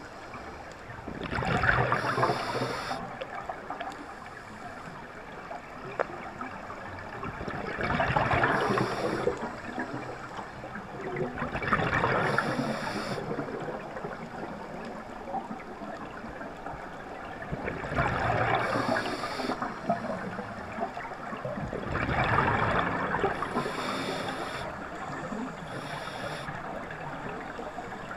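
Scuba diver breathing through a regulator underwater: a bubbling rush of exhaled air about every four to six seconds, with a quieter hiss between breaths.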